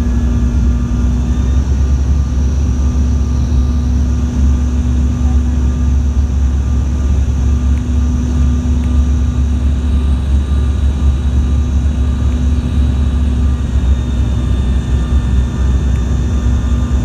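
Airliner cabin noise from the engines: a steady low rumble with a constant hum and faint high steady tones, unchanging throughout.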